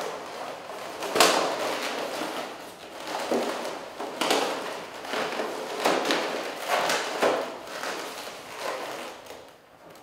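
White latex modelling balloons rubbing against each other as a twisted 260 balloon is pressed into place among the round balloons of a balloon swan. It comes as a string of irregular rubbing strokes, the loudest about a second in, dying away near the end.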